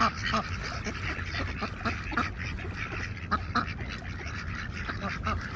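A flock of ducks quacking, many short calls overlapping one another, as they crowd in to be fed bread.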